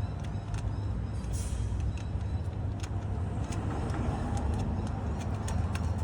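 Small sharp metallic clicks and taps of hand work as a solid thread insert is dummy-fitted into the freshly tapped hole in the engine's timing cover, over a steady low rumble. A brief hiss about a second and a half in.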